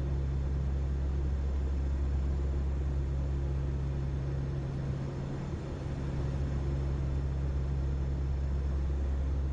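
Steady low drone of aircraft engines heard inside the cabin, dipping briefly about five and a half seconds in.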